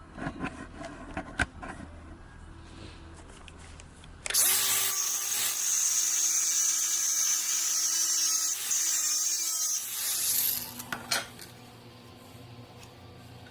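An electric power tool starts about four seconds in, runs steadily for about six seconds with a motor tone that dips briefly near the end, then stops. Light metal clinks and clicks come before and after it.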